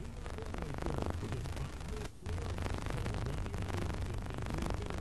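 Steady rumble and hiss of a moving taxi cab heard from inside the cabin, engine and road noise, cutting out for a moment about two seconds in.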